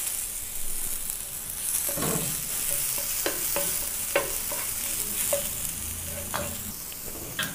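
Chopped onion, garlic, ginger, green chilli and curry leaves sizzling in hot oil in a pan, sautéing for a potato masala, with a spatula stirring and scraping against the pan about seven times.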